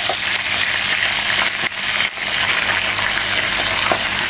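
Pieces of marinated pork sizzling in hot oil in a frying pan as they brown. Metal tongs clink against the pan a few times as the pieces are turned, most sharply about two seconds in.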